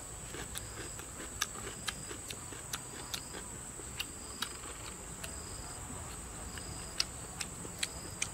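Insects drone steadily on one high note, with short chirps a little lower repeating about once a second. Irregular sharp clicks sound over it, the loudest about seven seconds in.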